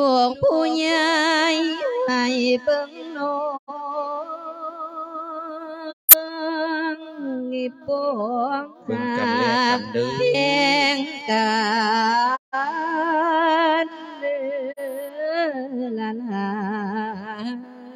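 A Buddhist monk chanting a Thai verse sermon in a sung style: one voice holding long, wavering notes with brief breaks for breath. A single sharp click about six seconds in.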